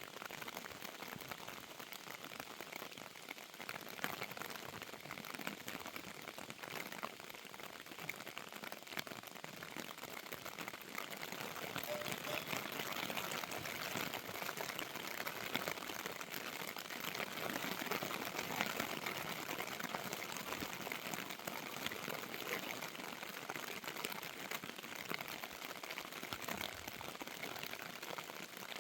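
Steady rain falling, a dense pattering hiss that grows somewhat louder partway through.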